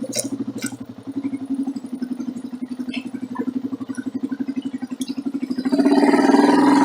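Motorcycle engine running at idle with a rapid, even pulse, growing louder about six seconds in.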